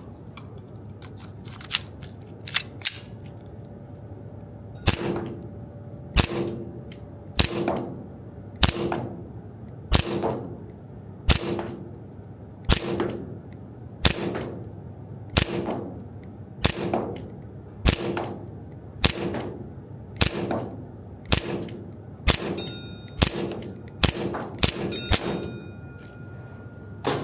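PTS ZEV 1911 gas blowback airsoft pistol firing single shots at a slow, even pace, about one every second and a quarter, each a sharp crack as the slide cycles. A few lighter clicks come first. Some shots near the end are followed by a brief metallic ring.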